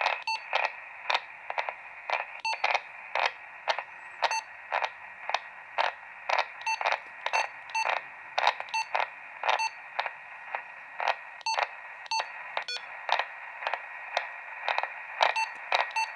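Red WAITIEE kids' walkie-talkie giving steady radio static hiss from its small speaker, broken by short clicks and key beeps about twice a second as its buttons are pressed and it steps through the channels.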